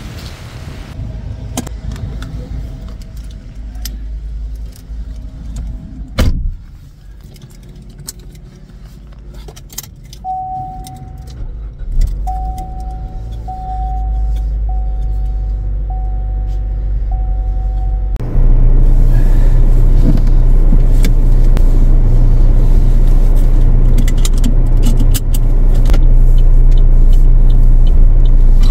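A car door shuts with a sharp knock amid small clicks and rattles of keys. The car's warning chime then beeps six times, a little over a second apart. The engine then starts abruptly, and a loud, steady low rumble of the running car fills the rest.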